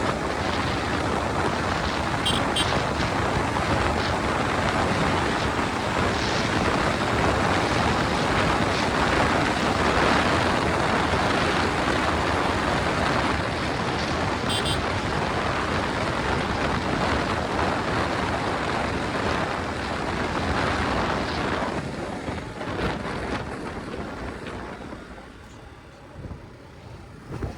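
Motorcycle on the move, its engine and exhaust mostly buried under steady wind rushing over the microphone; the noise falls away over the last few seconds.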